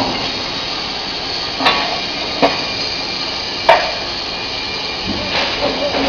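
Steady running noise of an induction forging furnace line with its automatic billet feeder, with a faint high whine. Three sharp metallic clanks of steel billets being set down or knocked together in the feeder.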